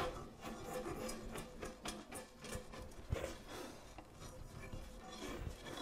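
Japanese paring chisel pushed by hand through hinoki cypress, faintly scraping as it shaves thin curls off the joint surface in a run of short strokes.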